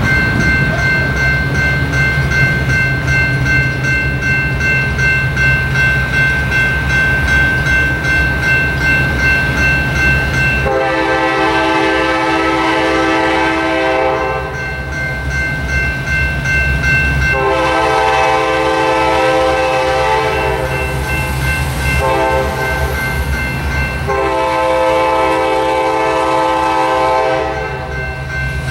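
A General Signals Type 2 electronic crossing bell starts ringing and rings steadily as the crossing activates. About eleven seconds in, an EMD GP38-3 locomotive's horn sounds the grade-crossing signal: two long blasts, a short one and a final long one. A low steady rumble runs underneath.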